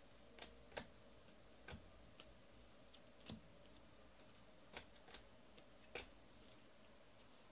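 Faint clicks of baseball trading cards being flipped through by hand, each card slid off the front of the stack and tucked behind. There are about eight soft, irregular ticks over a near-silent background.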